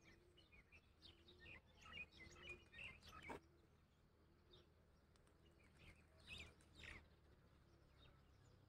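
Near silence outdoors, with faint, scattered bird chirps over quiet background noise.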